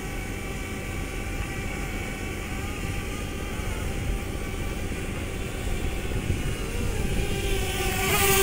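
DJI Mavic Air quadcopter's propellers humming with a steady whine over a noisy background, the pitch wavering briefly a little after six seconds in and the sound growing louder near the end as the drone flies closer.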